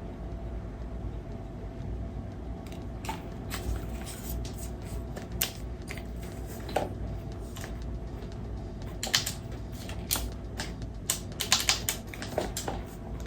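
Scattered clicks and clacks of an airsoft gas-blowback rifle and its magazines being handled, with a quicker run of sharper clicks about nine to twelve seconds in, over a steady low hum.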